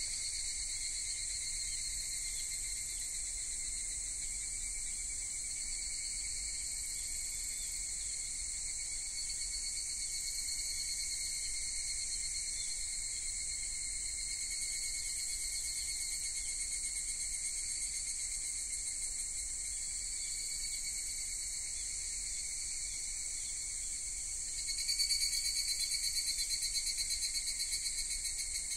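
Crickets and other insects trilling in chorus, a steady high-pitched pulsing that grows louder near the end.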